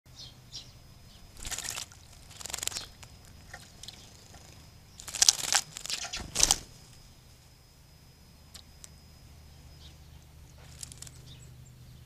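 Great tit bathing in a shallow bird bath, fluttering its wings in the water: four short bursts of splashing, the second pair louder.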